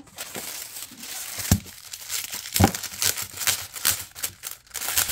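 Packaging crinkling and tearing as a photobook set is unwrapped by hand, with two sharp knocks about a second and a half and two and a half seconds in.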